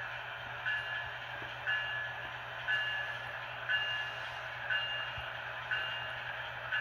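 HO scale model train running on its layout: a steady hiss, with a short, high, bell-like ding repeating about once a second.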